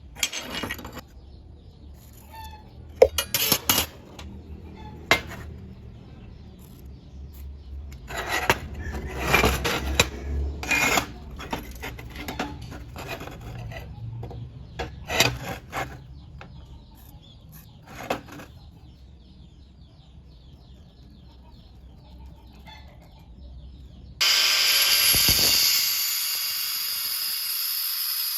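Scattered clinks, taps and scrapes of metal and tools being handled. Near the end, a loud, steady hiss starts suddenly.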